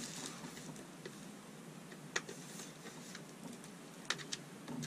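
A few light clicks and taps over a steady low hiss, from handling the air cooler's USB cable and plug while looking for an outlet.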